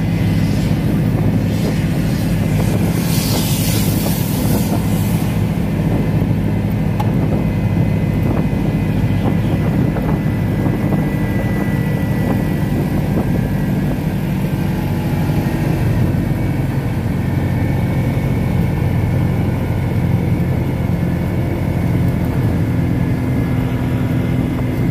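Steady drone of a vehicle's engine and tyres at road speed, heard from the moving vehicle itself. A brief rush of hiss comes about three seconds in.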